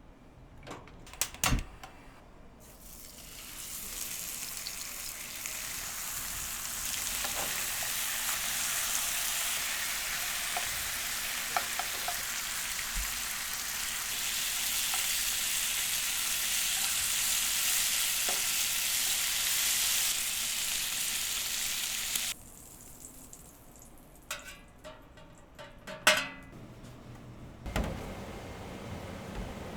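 Food sizzling in a hot pan, a steady frying hiss that swells in over the first few seconds and cuts off suddenly after about twenty seconds. A few sharp clicks come before and after it.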